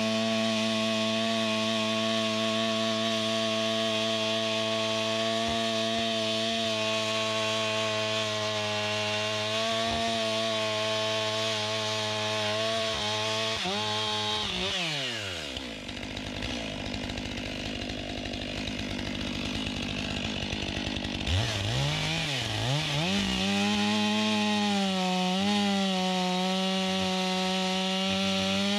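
Two-stroke chainsaw running at full throttle, cutting wood. Partway through, the engine drops sharply to idle for several seconds, then revs back up to full speed and carries on cutting.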